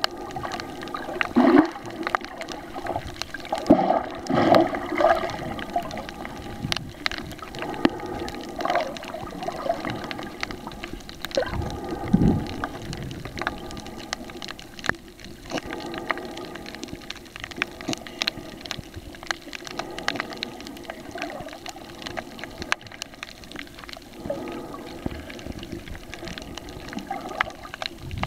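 Muffled underwater ambience picked up by a waterproof compact camera held below the surface: water gurgling and sloshing around the camera, with irregular swells and scattered small clicks.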